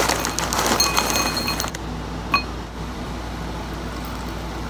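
Granola clusters pouring from a plastic bag into a glass bowl: a dense rattle of pieces hitting the glass for about the first two seconds, then a single ringing clink on the bowl.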